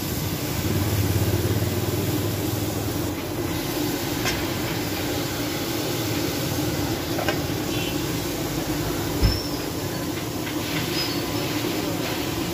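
Steady rushing hiss of chicken and tomatoes steam-frying under a metal dome lid on a flat iron tawa, with a single thump about nine seconds in.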